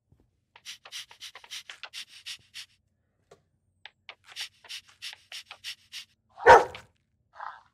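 Bulldog panting fast, about seven short breaths a second, in two runs, then one loud short bark about six and a half seconds in, followed by a softer brief sound.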